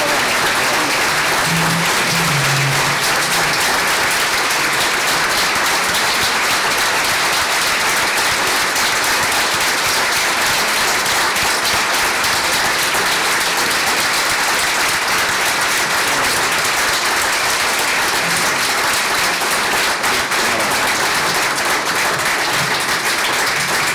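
A crowd applauding steadily, many hands clapping together in a dense, even patter.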